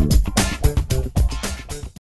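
Outro music with a steady beat, getting quieter near the end.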